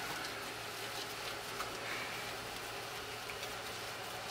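Water running steadily from a bathtub sprayer hose onto the tub floor.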